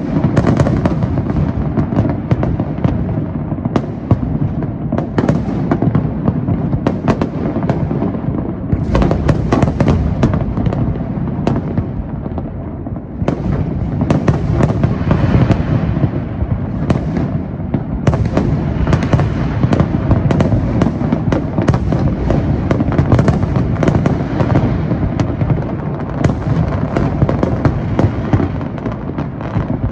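Fireworks display in a dense, continuous barrage: many overlapping bangs from bursting aerial shells, with no break in the firing.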